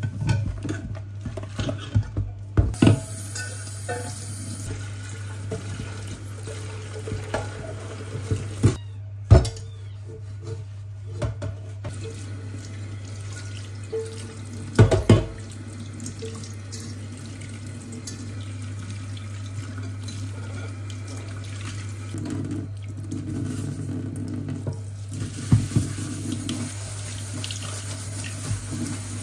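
Washing up at a stainless steel kitchen sink: a metal pot and strainer scrubbed with a sponge and rinsed under the running tap, with sharp clanks of metal against the sink now and then, the loudest about halfway through. A steady low hum runs underneath.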